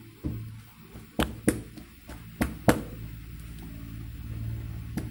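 Homemade glue slime being squeezed and stretched by hand, giving five sharp pops: two close together about a second in, two more a second later, one near the end, over a low steady background hum.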